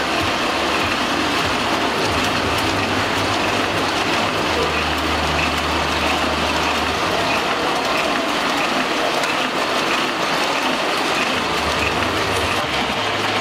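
Small sheet-fed offset printing press running, a steady rhythmic mechanical clatter of its rollers and paper feed, with a low hum that comes and goes.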